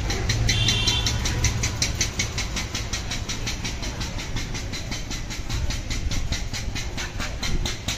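Steady, rapid mechanical ticking, about seven ticks a second, with a low hum under it for the first two seconds.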